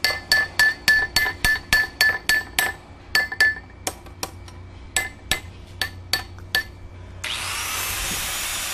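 Hammer striking metal, a quick run of ringing clangs, about three a second, that thins out and stops after some six seconds. About seven seconds in, a steady loud hiss starts.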